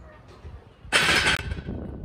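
A lifter's sharp, forceful exhale about a second in, followed by strained breathing, while pressing a heavy barbell on an incline bench.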